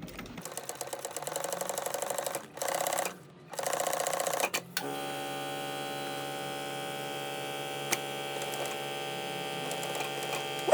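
Sewing machine stitching fabric in quick runs with two short pauses, then it stops stitching while a steady electrical hum carries on. A sharp click at the very end.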